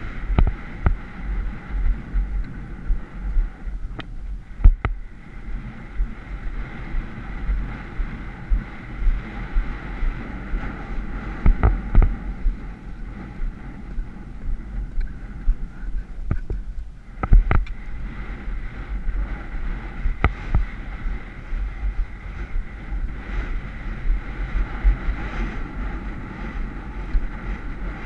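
Wind buffeting a helmet-mounted camera's microphone during a horse's cross-country gallop, over a rhythmic thudding of the gallop strides, with a few sharp knocks along the way.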